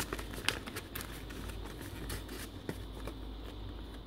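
Paper pages and card tags of a handmade junk journal rustling as hands turn and handle them, with a few small clicks and taps.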